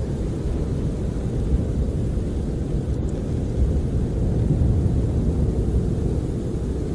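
Snowstorm wind heard from inside a camper: a steady low rumble that swells a little in gusts, with little hiss above it.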